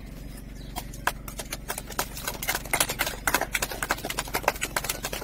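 A small group of people clapping by hand: a few scattered claps about a second in, growing into dense, uneven applause from about two seconds in.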